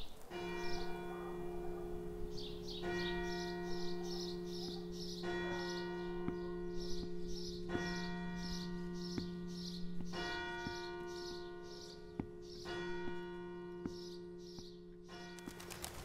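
Bells ringing in sustained tones over a steady low hum, with a new set of tones struck about every two and a half seconds and quick high chirps running through; the sound fades out at the very end.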